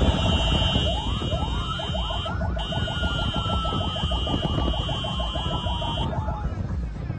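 Electronic sirens of a convoy of official vehicles sounding together: a fast warbling siren over a slower wail that winds down in pitch, and a steady high tone that breaks off briefly and stops about six seconds in. Engine and road rumble runs underneath.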